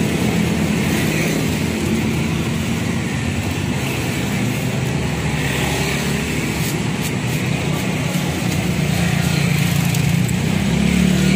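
Steady low hum of a running motor engine nearby. A plastic spatula scrapes across a stone grinding slab, with a few faint clicks around the middle.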